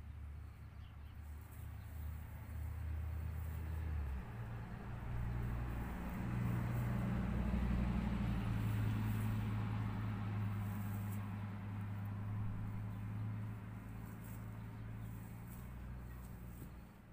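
An engine running at a steady pitch, with a step in pitch about four seconds in, getting louder toward the middle and fading near the end.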